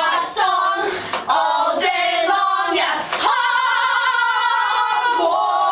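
Young women's voices singing together without accompaniment, a chanted skit song. The singing holds one long note through the second half.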